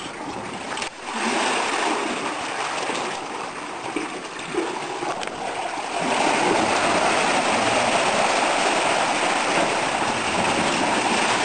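Pool water surging and splashing across a rock shelf: a seiche set sloshing by a distant earthquake. The rushing grows louder about a second in and again at about six seconds, then holds steady.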